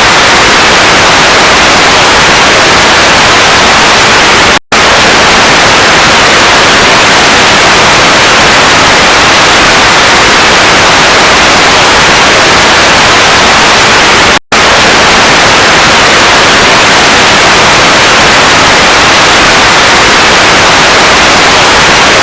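Loud, continuous static hiss, an even rushing noise strongest in the upper-middle range. It cuts out for an instant twice, about 5 and 15 seconds in.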